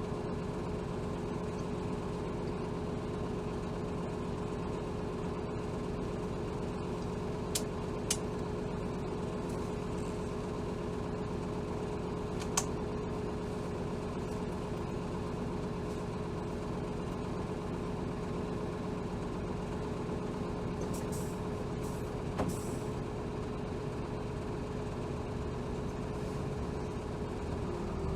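Hino Rainbow HR city bus's inline-six diesel heard from inside the cabin, running steadily with a constant whine and a low rumble. A few sharp clicks sound in the first half, and brief hisses come a little over twenty seconds in.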